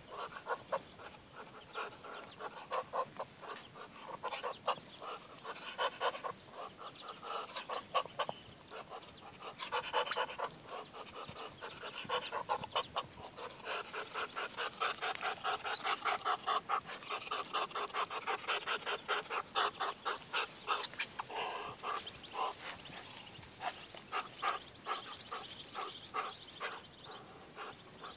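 A brood of Muscovy ducklings peeping, a dense stream of short calls following one another without pause.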